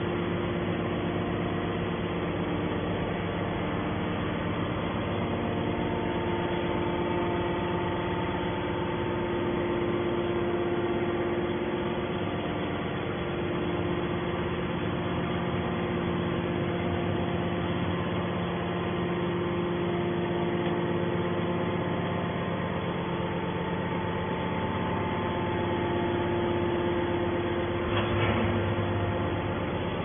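Hydraulic scrap metal baler's power unit running with a steady hum of several held tones. A short clank near the end.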